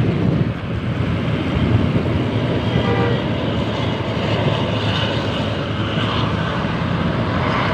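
A bus passing close, a steady rumble of engine and tyre noise.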